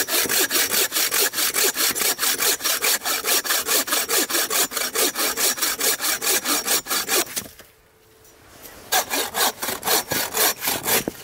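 Bow saw cutting through a log in quick, even push-pull strokes, about four a second. The sawing stops for a second or so about seven and a half seconds in, then starts again.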